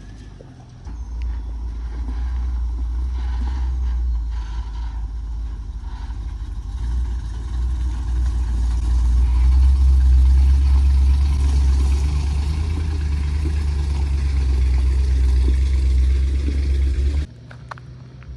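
A vehicle engine running while driving, a steady low rumble that cuts off suddenly near the end.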